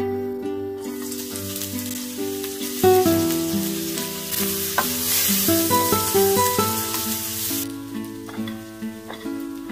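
Sliced onions sizzling as they fry in hot oil in a pan. The sizzle starts about a second in and cuts off near the end, over background guitar music.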